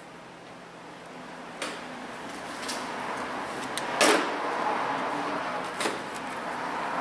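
Metal clicks and clinks of hand tools: pliers and a small bolt being handled against metal parts over a steel tool cart, a few sharp ticks with one louder clank about four seconds in.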